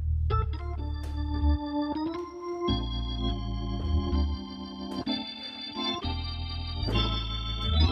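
Hammond-style drawbar organ, an HX3 tonewheel emulation built into a two-manual console, played in sustained chords over a low bass line, the chords changing every second or so.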